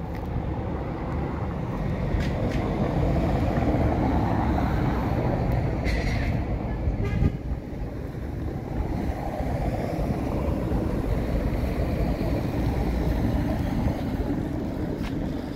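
Steady rumble of a moving vehicle, with a short high-pitched toot about six seconds in.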